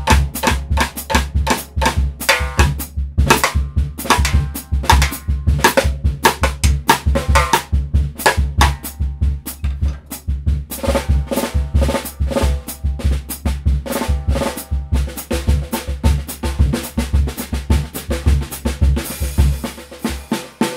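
Acoustic drum kit playing a groove: a steady bass drum beat under snare and rim strokes. The snare strokes thin out for a couple of seconds midway, and near the end a hissing sweep runs across the snare head.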